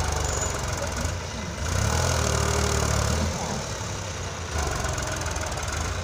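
New Holland farm tractor's diesel engine running hard under load as it drags a leveller blade through loose sand. The low engine note steps up and down a couple of times.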